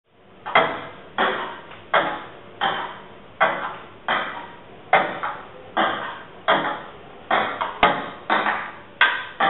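Table tennis rally sounds played through loudspeakers: sharp ball knocks, one about every 0.7 s, each with a short echo. They start about half a second in, and a few come in quicker succession near the end.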